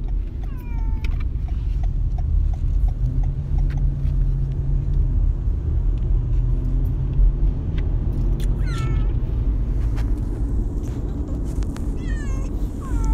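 Cats in travel carriers meowing, a few drawn-out falling meows about a second in, around nine seconds and near the end: distress calls of cats stressed by the car ride. A steady low rumble of the car runs underneath.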